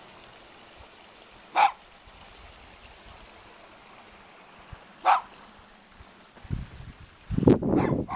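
A dog barking twice, single short barks about three and a half seconds apart, over the steady faint trickle of a small stream. Near the end, a louder low rumble covers it for about a second and a half.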